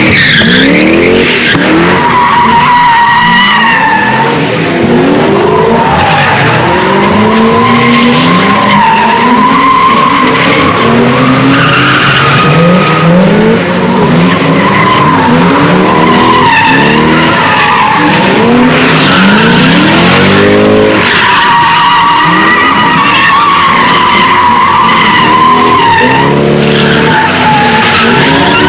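Cars drifting and spinning donuts: tyres squeal loudly and continuously in a wavering screech, while the engines rev up again and again under the slides.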